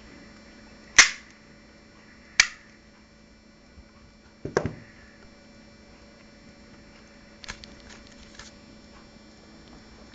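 Sharp metallic clicks from a CF98 9mm pistol being handled during reassembly: two loud clicks about a second and a half apart, a short rattling clack at about four and a half seconds, then a few lighter clicks later on.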